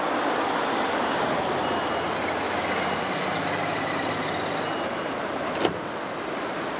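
Steady road traffic and tram noise, a continuous rush with a low hum, faint high whining tones in the middle, and one sharp click near the end.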